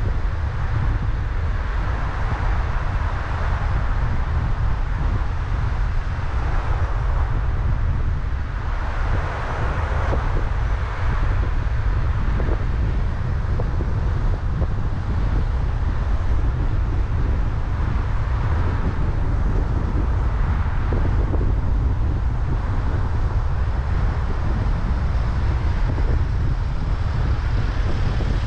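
Steady road and wind noise of a car driving at speed: a constant low rumble with tyre and wind hiss that swells and fades several times as traffic passes.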